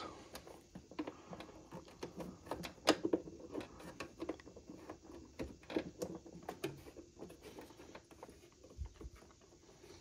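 Small scattered clicks and ticks from a screwdriver prying at the latching tabs of a Keurig K-Supreme coffee maker's plastic outer shell as the case is worked loose. The sharpest click comes about three seconds in.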